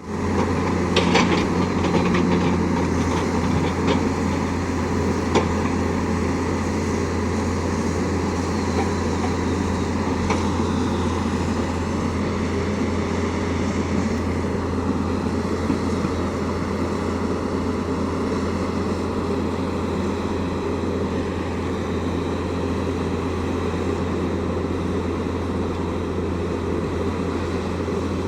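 Tata Hitachi excavator's diesel engine running steadily with a deep, even drone, and a few sharp knocks and clatters in the first several seconds.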